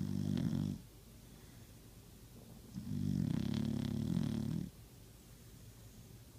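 Dog snoring in its sleep: a snore ends within the first second, then after a quiet gap comes one long snore of about two seconds.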